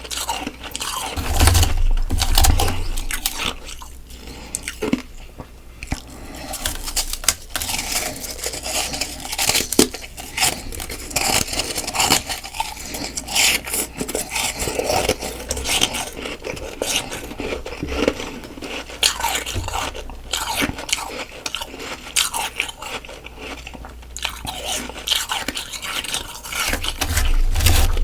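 Close-miked biting and chewing of soft freezer frost: dense, irregular crunching with a louder burst of bites about two seconds in.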